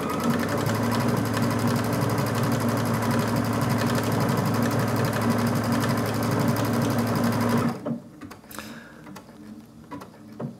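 Brother XV Dream Machine sewing a decorative stitch at a steady speed, then stopping suddenly about three-quarters of the way through. The stop is the machine pausing near the end of the line to ask for the end point to be reconfirmed.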